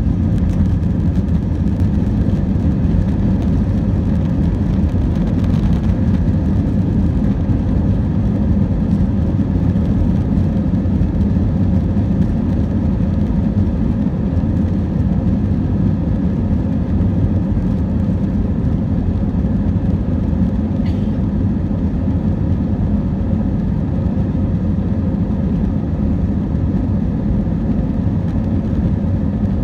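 Airliner's jet engines at take-off thrust, heard from inside the passenger cabin: a steady, loud, low roar with the rumble of the take-off run.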